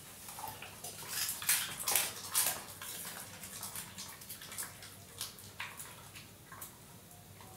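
Wet mouth sounds from a drooling Labrador retriever: a quick run of licking and lip-smacking clicks in the first three seconds or so, then scattered smacks.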